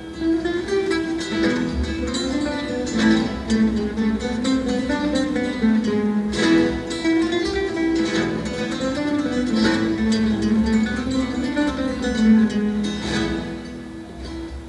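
Ensemble of acoustic guitars playing a piece together, plucked melody over strummed chords, softening near the end.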